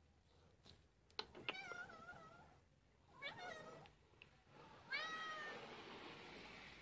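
A domestic cat meowing three times, each meow wavering and falling in pitch, the last one about five seconds in the loudest.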